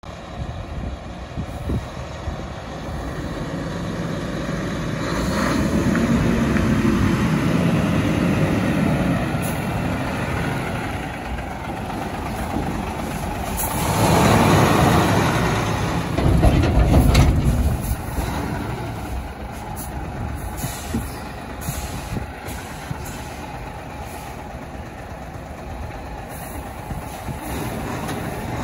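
Hino 700 8x4 tipper truck's diesel engine running as the truck drives slowly past. It grows louder about halfway through, with a hiss of air brakes.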